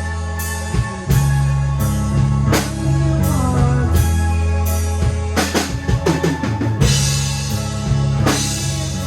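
Psychedelic alternative rock played by a full band: drum kit over held bass and guitar notes. A quick drum fill comes about five and a half seconds in, followed by a cymbal crash.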